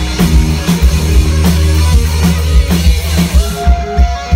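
Loud live heavy rock band: pounding drum kit over a heavy low riff. About three and a half seconds in the low riff drops away, leaving separate drum hits and a single held guitar note.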